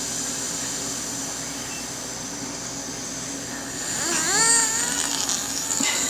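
Steady background hiss, then about four seconds in a baby lets out a fussy whimpering cry that rises and falls in pitch, with a shorter whimper near the end.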